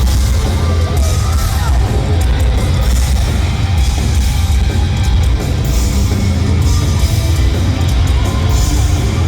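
Live heavy metal played loud: heavy, distorted electric guitars, bass and drums, with the low end dominating and cymbal crashes on top.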